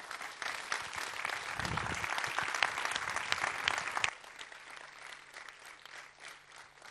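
Audience applauding. The clapping builds and holds, then drops off sharply about four seconds in, leaving a fainter scatter of claps.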